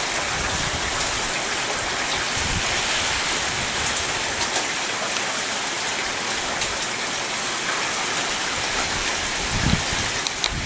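Heavy hurricane rain falling steadily, an even hiss of rain on lawns, pavement and cars, with a few brief low thumps.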